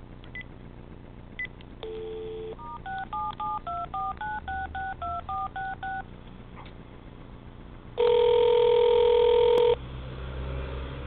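Telephone dialing: a couple of short beeps, a brief burst of dial tone, then about a dozen touch-tone key tones at about four a second. A single ringback ring, the loudest sound, follows for nearly two seconds near the end.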